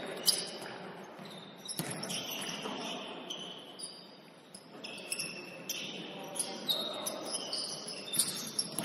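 Basketball game sounds on an indoor court: the ball bouncing with sharp knocks every so often, and short high squeaks of sneakers on the floor.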